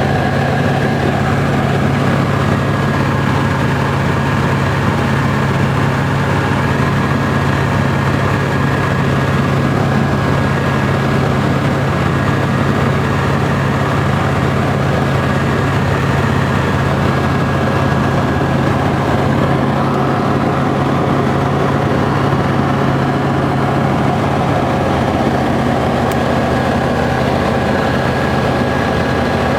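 Small propeller plane's engine running at a steady, unchanging drone, heard from inside the cabin.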